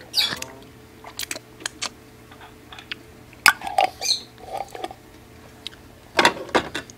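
Handling noise: a plastic bag rustling, with scattered clicks and taps as a small glass jar is handled. A sharp click comes about three and a half seconds in, and the loudest rustle comes near the end.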